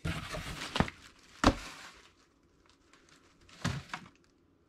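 Cardboard shipping box being lifted and moved, its flaps and the plastic wrapping inside rustling and scraping, with a sharp knock about one and a half seconds in and another short rustle near the end.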